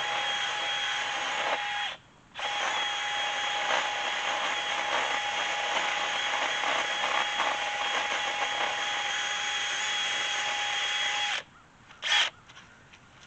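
Handheld power drill running steadily with a half-inch bit in a wooden gate post, wallowing out the hole so the threaded gate hinge pin screws in more easily. It pauses briefly about two seconds in, stops about eleven seconds in, and there is one short loud burst just after.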